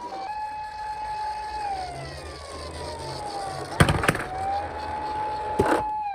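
Police-car-style wail siren: a held tone that slowly falls away and climbs back up to hold again. Sharp knocks sound twice just before the middle and once more near the end.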